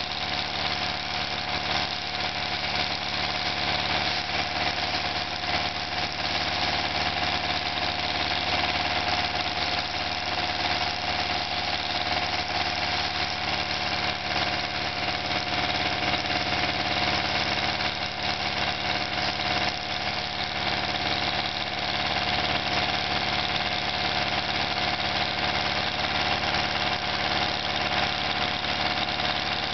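Water-well drilling rig running steadily while it drills, its machinery making a dense, even noise with a steady high whine over it.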